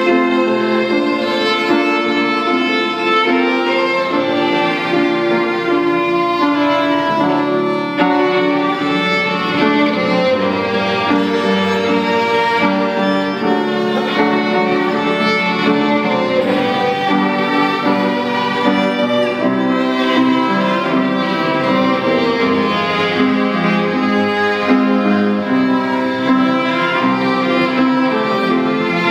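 Two violins playing a duet: a continuous bowed melody that moves from note to note without pause.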